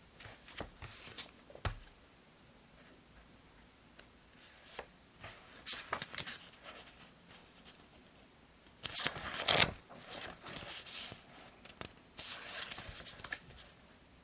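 Paper and sticker sheets being handled: short bursts of crisp rustling and tearing, loudest in a cluster about nine seconds in.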